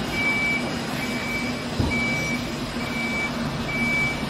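Concrete mixer truck's reversing alarm sounding a steady high beep about once a second as the truck backs up, with its engine running underneath. A brief knock comes just under two seconds in.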